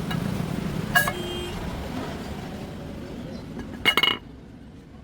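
Metal parts or tools clinking against each other with a short ringing tone: one strike about a second in and a quick cluster of strikes near the end, over a low rumble that fades away.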